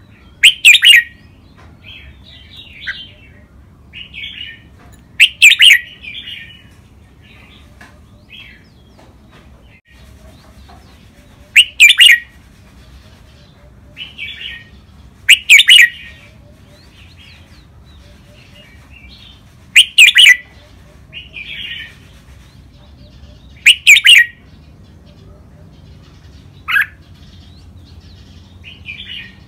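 Red-whiskered bulbul singing: six loud short song phrases spaced about four seconds apart, with softer chirps between them and one brief call near the end.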